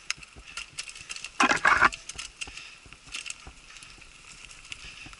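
Mountain bike rattling and clicking over a rough, root-strewn dirt trail, heard from the rider's own bike, with a louder burst of clatter about one and a half seconds in.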